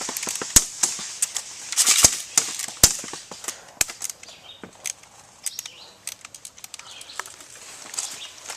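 Airsoft guns firing across the field: irregular sharp pops and clicks, some in quick runs, with a few louder shots in the first four seconds.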